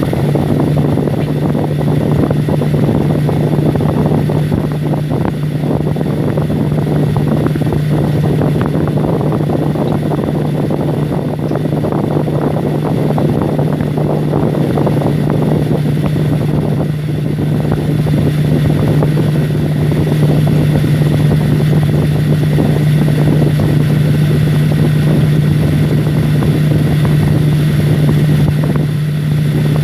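Humidifier running: a steady low hum with a constant rushing noise over it.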